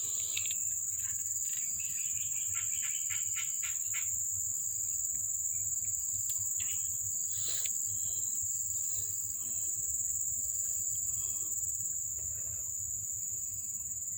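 Insects trilling: a steady, unbroken high-pitched drone. About two seconds in, a short run of quick chirps sounds over it.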